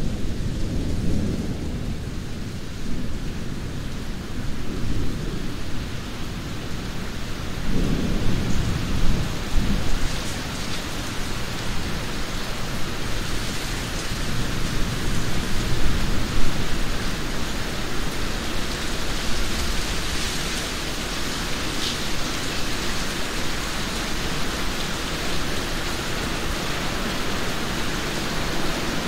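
Steady rain falling with distant thunder rumbling low beneath it. One rumble swells about eight seconds in, and the rain hiss grows fuller after it.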